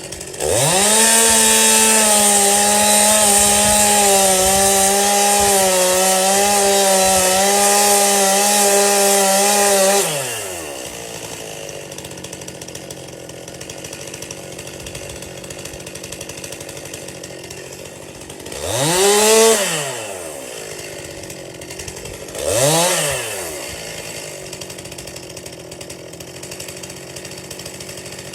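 Chainsaw engine held at full throttle for about ten seconds, then dropping to idle. It is blipped twice while idling, each a short rise and fall in revs.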